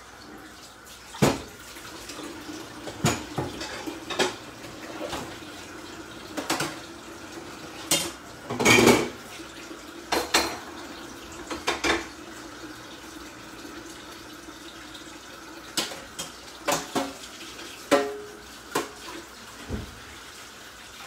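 Pots, dishes and cutlery clinking and knocking against each other in irregular strokes, with a longer clatter about nine seconds in, over water running from a tap.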